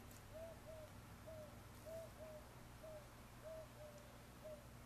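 A bird calling faintly and repeatedly: short, slightly arched cooing notes, often in pairs, about two a second.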